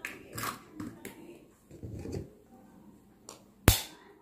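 Eggs being cracked over a glass bowl: light clicks and shell handling, with one sharp knock near the end as an egg is struck to break it.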